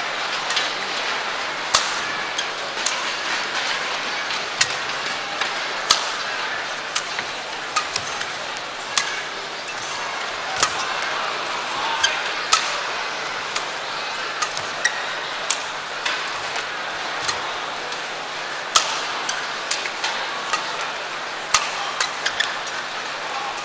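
Badminton rally: sharp racket strikes on the shuttlecock, roughly one a second, over steady arena crowd noise.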